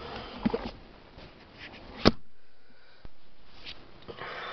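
Rustling handling noise inside a car cabin, with one sharp click about two seconds in and a fainter tap about a second later.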